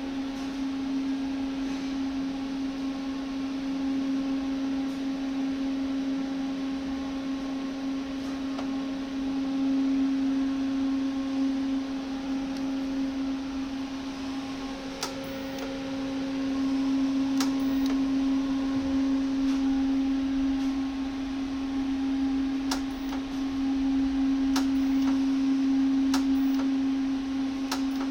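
Panasonic YD-350GB1 digital welding power source switched on and idling, giving a steady electrical hum that swells slightly now and then. Several light clicks come in the second half.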